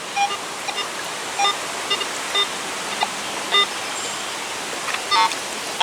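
Garrett metal detector giving a string of short, faint, irregular beeps over the steady rushing hiss of a river.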